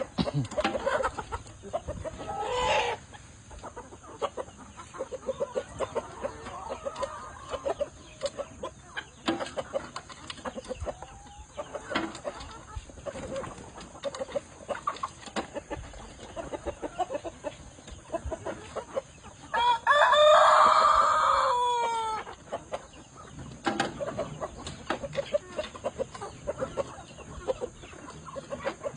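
Chickens clucking throughout, with a rooster crowing once about twenty seconds in, a loud call lasting about two seconds.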